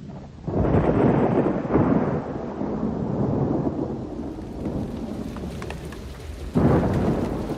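Rain falling steadily with thunder: a rumble swells in suddenly about half a second in and slowly fades, and a second sudden clap comes near the end.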